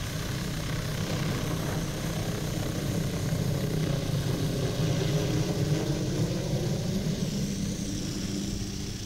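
Hughes 500 helicopter hovering low and then flying off, a steady rapid rotor beat over the engine's drone. A thin high whine bends up and down about seven seconds in.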